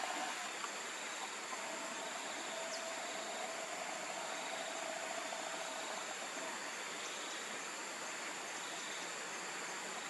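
Steady forest ambience: an even hiss with a constant high-pitched insect drone and a faint lower hum, and no distinct calls.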